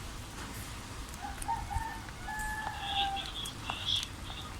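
A rooster crowing in the background, a drawn-out call about a second in that runs for a couple of seconds. A steady low hum and a few light clicks sit underneath.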